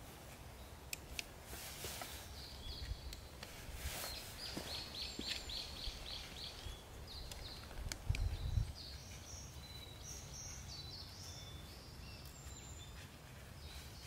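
Outdoor ambience with birds singing: a quick string of high chirps, then scattered calls. Clicks and rustling come from luggage straps and buckles being fastened on a motorcycle's rear seat bag, with a low thump about eight seconds in.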